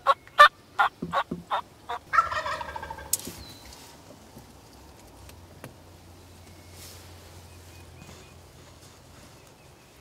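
A run of about eight short, sharp turkey yelps, then a wild turkey gobble: a fast rattling call that falls in pitch, about two seconds in.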